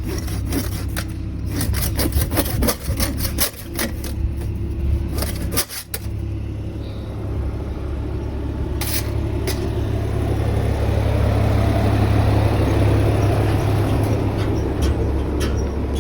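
Rapid back-and-forth sawing strokes cutting through a metal engine pipe for the first six seconds or so, over the steady running of a vehicle's engine. After the sawing stops, the engine grows louder, loudest a little past the middle, as the vehicle comes close.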